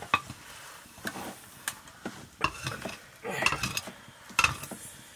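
A metal utensil stirring and scraping in a cooking pot, with irregular clinks, some of which ring briefly.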